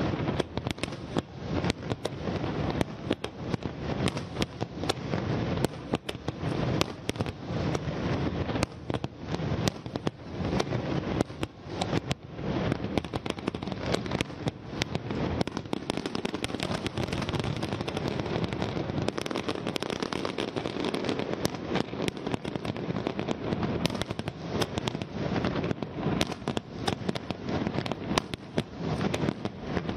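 Fireworks display: a dense, continuous barrage of aerial shell bursts and crackling, many sharp bangs a second with no let-up.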